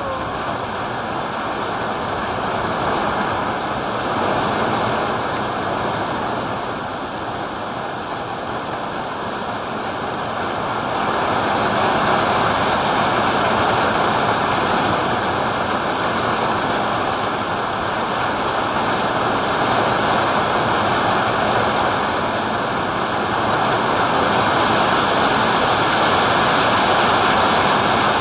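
Rain falling steadily in a dense, even hiss, swelling louder about twelve seconds in and again near the end.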